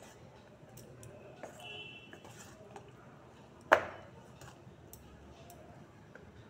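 Metal spoon stirring thick semolina batter in a stainless steel bowl: soft wet scraping, with one sharp ringing clink of the spoon against the bowl a little past halfway.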